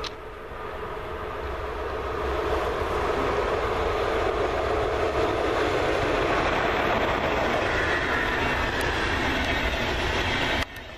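Electric-locomotive-hauled passenger train passing close by: rolling wheel and rail noise that builds as it approaches, then holds steady as the coaches run past. It cuts off suddenly near the end.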